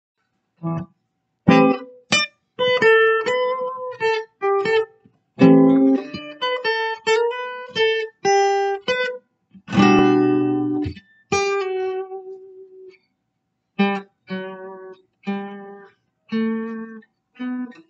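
Acoustic guitar played fingerstyle: single plucked notes and short picked phrases with brief pauses between them, and a fuller chord struck about ten seconds in and left to ring out.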